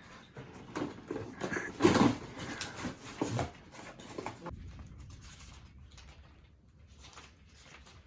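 Handling noises: a run of knocks, clatters and rustles, loudest about two seconds in. After about four and a half seconds it settles into a quieter stretch with only a faint low hum.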